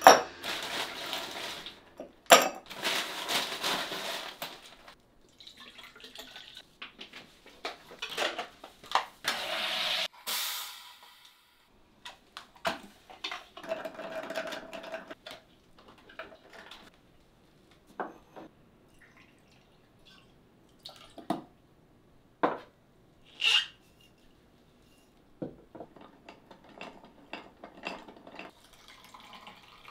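Ice cubes dropped clattering into a tall glass, liquid poured in, then a metal bar spoon stirring the drink, with scattered short clinks of ice and spoon against the glass.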